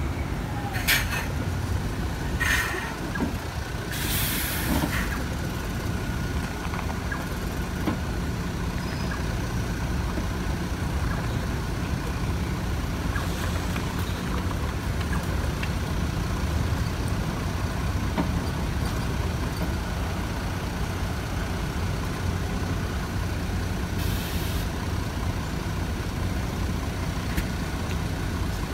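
City buses idling at a stop: a steady low engine rumble, broken by short hisses of compressed air released by the buses' pneumatics, three in the first five seconds and one more near the end.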